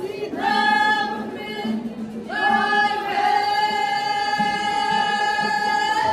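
A group of voices singing a cappella, a short phrase or two and then one long held note from about two seconds in.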